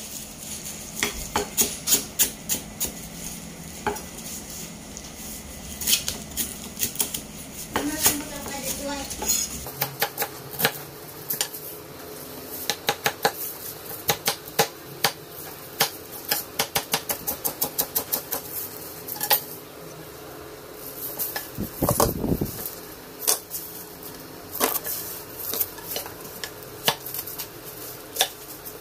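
Kitchen knife chopping on a thick wooden chopping block: many sharp strikes in quick, irregular runs as fresh turmeric, galangal and ginger are diced small.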